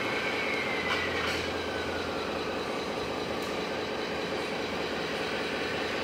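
Whine of a radio-controlled truck's electric drive, falling slowly in pitch over the first few seconds as it slows, over a steady hiss of machinery in the hall, with a few light clicks.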